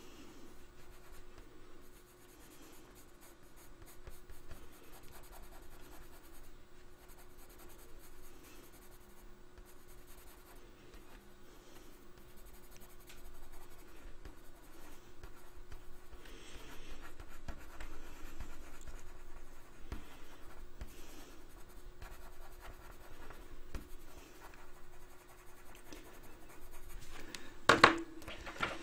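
Coloured pencil scratching lightly on drawing paper in small, repeated shading strokes, with a faint steady hum underneath. One sharp knock comes about a second before the end.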